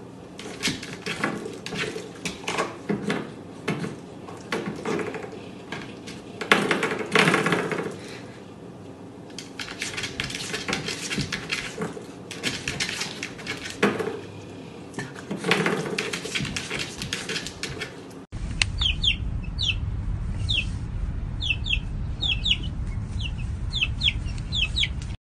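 A spring doorstop batted again and again by a puppy's paw, twanging and rattling in repeated bursts. About eighteen seconds in it gives way to baby chicks peeping, short high falling calls, over a low steady rumble.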